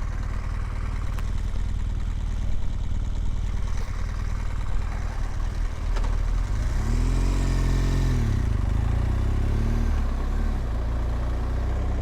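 BMW R1200GS Adventure's boxer-twin engine running as the motorcycle rides along. The engine note rises and then falls again a little past halfway through.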